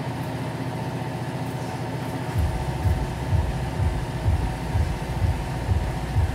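Yamaha Bear Tracker 250's single-cylinder four-stroke engine running steadily, freshly started after a carburettor rebuild. About two seconds in, a low rhythmic pulsing sets in at roughly two beats a second.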